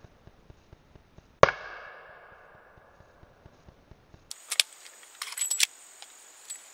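A single .45 ACP pistol shot from a Smith & Wesson Governor revolver: one sharp crack about a second and a half in, with a long fading echo. After that come a few short metallic clicks of the opened revolver and its spent brass cases being handled.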